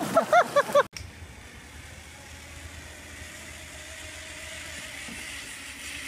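A flamingo honking in a quick run of short, goose-like calls that cut off abruptly about a second in, followed by steady, fainter background noise with a low rumble.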